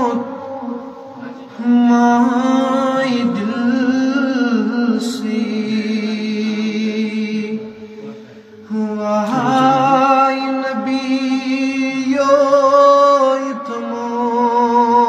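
A man singing a naat solo, in long drawn-out melodic notes with wavering ornaments. He breaks off briefly about a second in and again around eight seconds.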